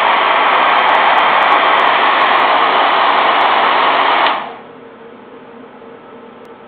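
Curlmaster 1875 handheld hair dryer blowing, a loud steady rush of air and fan. It stops abruptly about four seconds in, leaving a much quieter steady hum with a faint tone.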